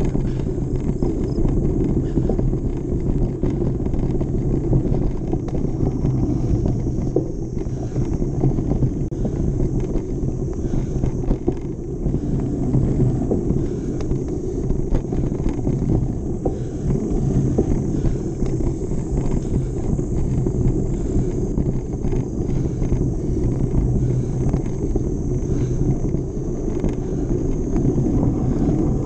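Mountain bike being ridden fast along a dirt trail: a steady low rumble from the tyres and the air rushing over the microphone, with frequent small rattles and clicks from the bike over the rough ground.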